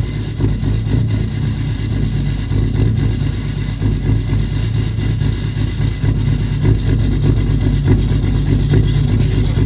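Cummins turbo-diesel pickup engine idling steadily in deep cold (−31 °C), shortly after being started without the grid heater warming the intake.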